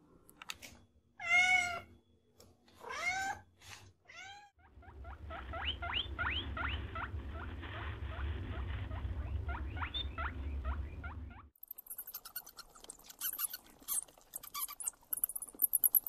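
A kitten meowing three short times. Then comes a low steady rumble with a run of quick rising chirps over it, and from about twelve seconds in, rapid high-pitched crunching clicks of a pet rat chewing seeds.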